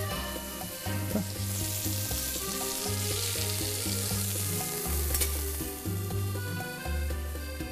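Meat sizzling on a hot flat-top grill as it is turned with tongs, the sizzle strongest in the middle, with a sharp click a little past the middle. Background music with a steady bass line plays underneath.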